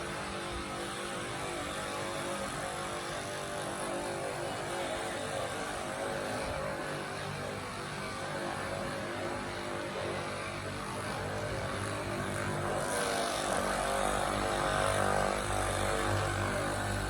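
A steady motor hum, growing a little louder about 13 seconds in.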